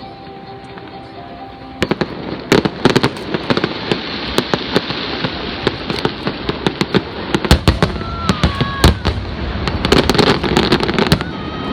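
Fireworks display: steady music at first, then from about two seconds in a dense, continuous run of sharp bangs and crackling bursts from aerial shells.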